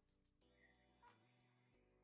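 Faint background music with steady held notes.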